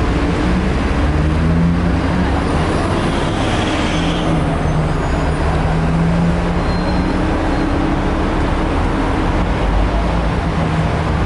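Open-top sightseeing bus driving through city traffic, heard from the open upper deck: a steady low rumble with an engine hum that shifts a little in pitch.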